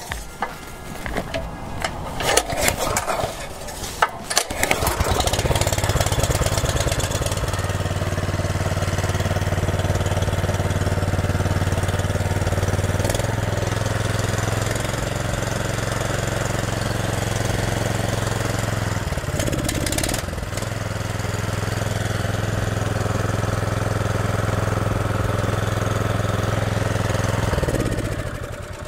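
Honda GX340 single-cylinder four-stroke engine pull-started on the recoil cord, catching after a few pulls about four seconds in, then running steadily with no air filter fitted. It wavers briefly about two-thirds through and winds down to a stop near the end.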